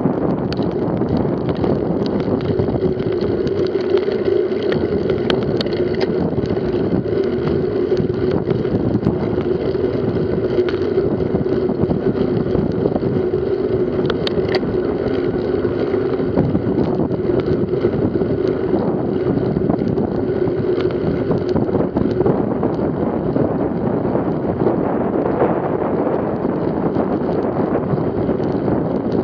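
Riding noise of a mountain bike on asphalt: wind buffeting the microphone over a steady hum from the knobby tyres rolling on the road, with a few brief clicks from bumps.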